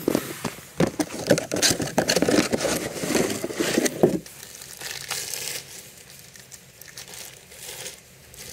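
Packaging crinkling and tearing as new front shock absorbers are unwrapped by hand. It is busy with sharp crackles for about four seconds, then drops to faint rustling.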